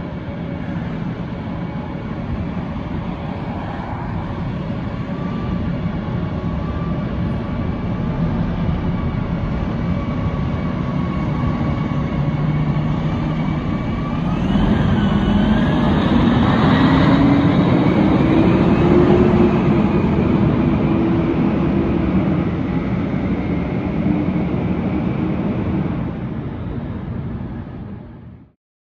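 Tiller aerial ladder fire truck's diesel engine running steadily, then revving up with a rising pitch about halfway through as the truck pulls away. The sound stops abruptly near the end.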